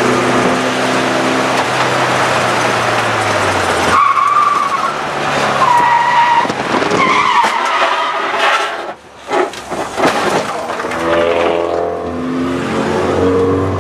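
Race car engine running, then from about four seconds in the tires squeal for several seconds as the car skids into a turn with no brakes. A few sharp knocks about nine seconds in, then the engine idles.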